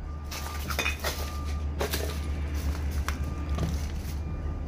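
A low steady drone with a faint thin tone above it, and scattered soft knocks and rustles.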